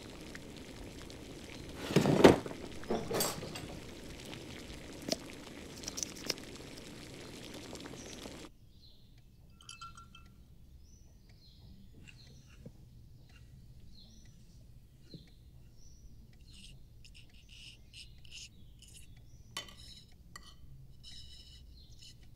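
Film sound design: a rushing noise with a few sharp hits, the loudest about two seconds in, cuts off abruptly after about eight seconds. Then comes a quiet room with faint high chirps and a few small clinks near the end.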